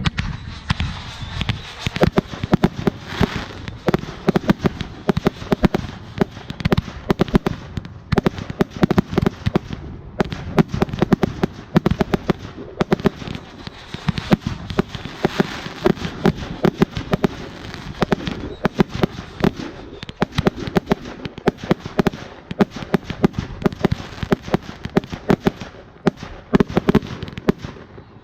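Fireworks going off: a dense, continuous run of sharp pops and crackles over a steady hiss.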